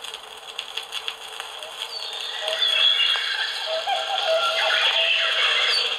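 Music from a vinyl LP played on an improvised record player through a portable cassette radio's speaker. The sound is thin, with no bass. It starts quiet with some clicks and gets louder about two seconds in.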